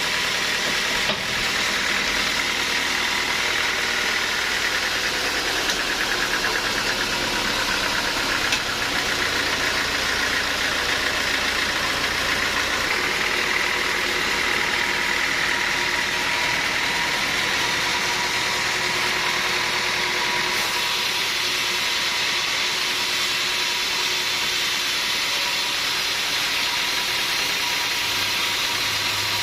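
Sawmill machinery running steadily: a continuous mechanical drone with a constant hum and hiss.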